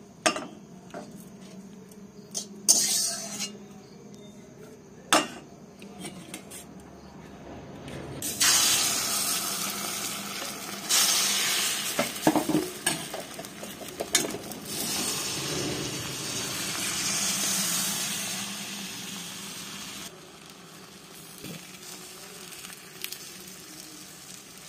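A few sharp clinks of a metal spatula on a steel pan, then, about a third of the way in, beaten egg starts sizzling loudly in hot oil in a kadai, with a spoon scraping the pan as the egg is spread. The sizzle drops to a quieter hiss for the last few seconds.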